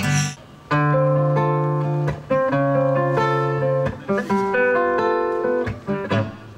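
Solo acoustic guitar playing chords: strummed and picked chords that ring out and fade, with a few quicker strokes about four seconds in. A sung phrase breaks off at the very start.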